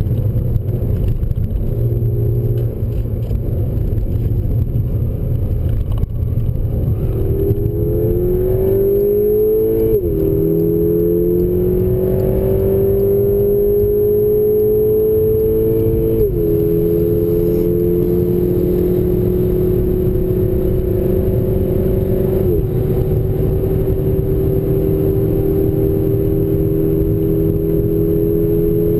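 Volkswagen Golf GTI Mk6's turbocharged 2.0-litre four-cylinder engine heard from inside the cabin, accelerating hard out of a corner down a straight. The engine note climbs steadily and drops sharply at three upshifts, about ten, sixteen and twenty-two seconds in, then climbs again after each.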